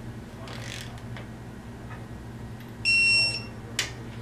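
Electronic torque wrench beeping once, a steady high tone lasting about half a second, as a connecting-rod cap bolt reaches the wrench's preset torque. A sharp click follows just after.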